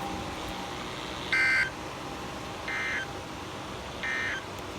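Emergency Alert System end-of-message signal: three short two-tone SAME digital data bursts about 1.4 seconds apart, the first loudest, over a steady background hiss. The three bursts are the EOM code that marks the end of the alert broadcast.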